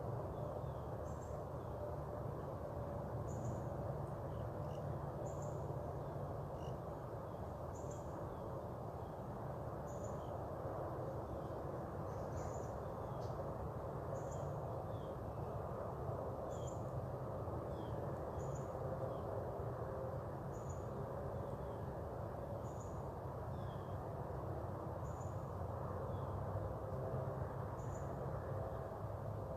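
Backyard outdoor ambience: short high-pitched chirps repeating about every two seconds, with fainter, lower calls among them, over a steady low background hum.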